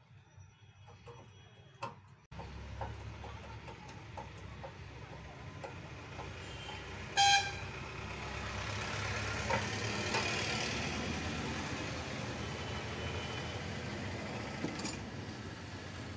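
A motor vehicle starts running a couple of seconds in with a steady rumble that swells and then eases off. A short, loud horn toot sounds about seven seconds in. Light clicks of tools being handled come before it.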